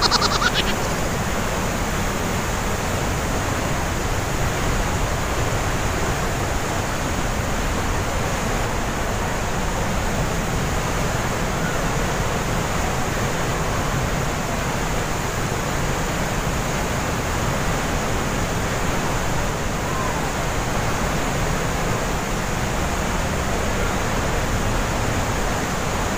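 Glacier-fed waterfall rushing through a narrow rock gorge: a steady, loud, unbroken noise of falling water.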